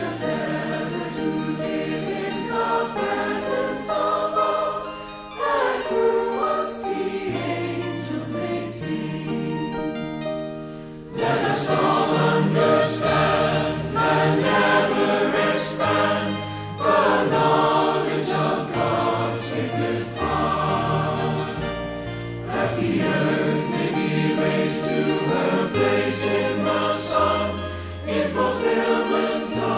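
A choir singing a devotional hymn over sustained instrumental accompaniment, with lines such as "Let us all understand and ever expand the knowledge of God's sacred fire". The singing grows fuller and louder about eleven seconds in.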